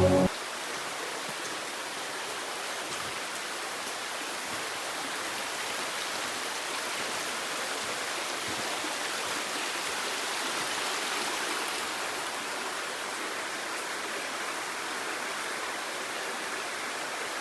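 Steady rush of falling water from a waterfall: an even hiss that holds level throughout.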